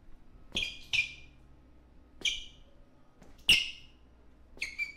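About six short, sharp high-pitched sounds from a film clip, spaced irregularly, each starting suddenly and fading within a fraction of a second; the two loudest come in the middle and near the end.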